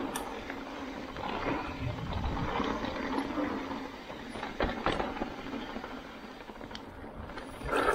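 Mountain bike riding down a dirt singletrack: a steady rush of tyre and trail noise with the bike rattling, and sharp knocks a little past halfway and again near the end.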